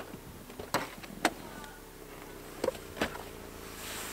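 Subaru Forester's 2.5-litre petrol flat-four running faintly and steadily, with four short clicks and knocks from the driver's door being unlatched and swung open.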